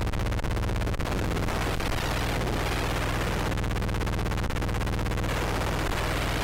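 Soundtrack of an animated video artwork: a steady, dense wash of noise over a low hum of several held tones, with a rapid, even crackle running through it.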